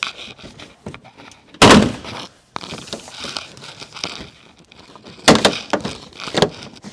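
Plastic front bumper cover of a 2013 Lexus ES350 and the engine splash guard being pulled and shoved into place by hand, knocking and scraping together. One loud thump comes about one and a half seconds in, and a quick run of knocks near the end.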